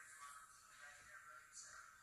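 Near silence, with faint, distant speech barely above the recording's background hiss.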